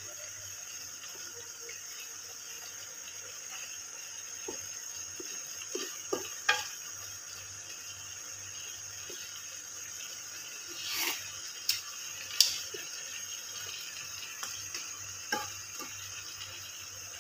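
Buttery sauce simmering in a wok with a steady hiss, while a wooden spatula stirs shrimp and seafood balls, knocking and scraping against the pan several times, sharpest about six and twelve seconds in.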